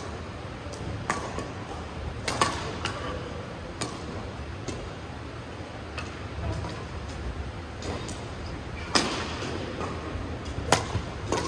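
Badminton rackets hitting a shuttlecock in a doubles rally: sharp hits at irregular intervals, the loudest ones coming in quick succession in the last few seconds.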